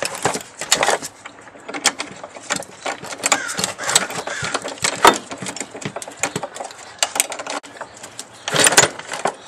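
A wrench clicking and knocking against the master cylinder mounting bolts as they are tightened, with rustling of gloved hands. The clicks come at irregular intervals, with a denser cluster near the end.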